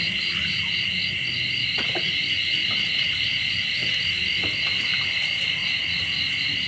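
Night insect chorus: a steady high buzzing with a pulsed chirp repeating about five times a second, over a low steady rumble, with a few light clicks.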